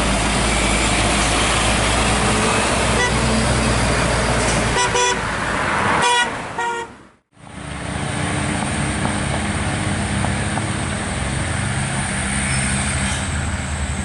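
Heavy vehicle engines running with road traffic noise, with a few short horn toots about five to seven seconds in. The sound drops out briefly just after, then the engine noise carries on steadily.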